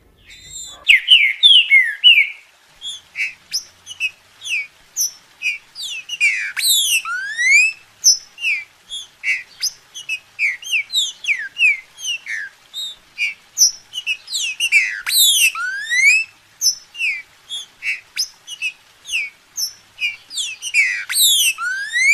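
Green-winged saltator (trinca-ferro) singing, starting about a second in: a steady run of short whistled notes, about two a second, broken three times by quick clusters of sweeping notes that fall and rise.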